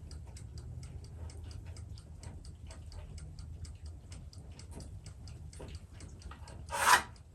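Steady mechanical ticking, about four or five ticks a second, with one short loud clatter near the end.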